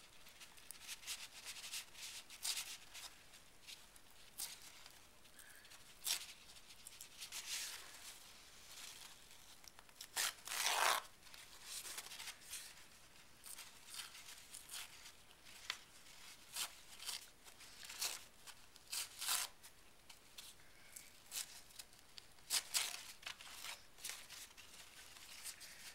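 Paper being handled and torn in small, scattered rustles and light clicks, with one longer tear about ten and a half seconds in.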